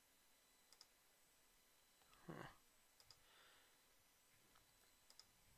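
Near silence with a few faint computer mouse clicks. There is a brief, faint vocal sound about two seconds in.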